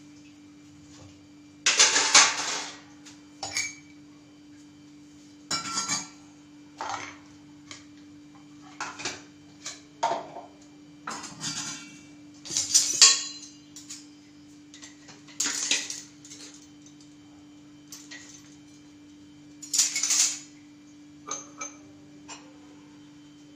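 Stainless steel kitchen utensils clinking and clattering as they are handled, in irregular bursts, loudest about two seconds in, around the middle and again near twenty seconds, over a steady low hum.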